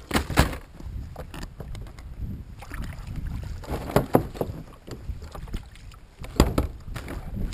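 Gear being handled in a kayak's cockpit: a plastic tackle tray, a bag and a bottle knock and clatter against the hull and crate. There are several sharp knocks, two just at the start, a cluster about four seconds in and the loudest about six and a half seconds in, over a low rumble.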